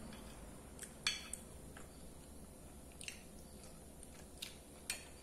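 Faint close-up eating sounds: a person chewing, with a handful of short sharp clicks of a metal spoon against a ceramic plate, the loudest about a second in.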